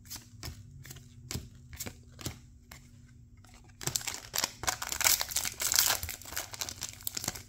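Trading cards flicked one by one from hand to hand, a short snap about twice a second. About four seconds in, a dense crinkling takes over as a sealed foil Weiss Schwarz booster pack is handled and torn open.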